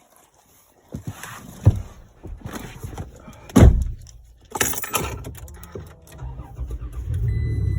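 Keys jangle and rattle, and a truck door shuts with a sharp knock about three and a half seconds in; then the 3rd-gen Toyota Tacoma's engine starts and runs at a steady idle, its hum stepping up near the end.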